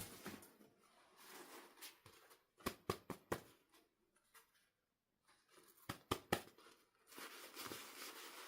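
Quiet handling sounds of small objects: a sharp tap at the start, a quick cluster of about four clicks around three seconds in, two more clicks around six seconds, and soft rustling near the end.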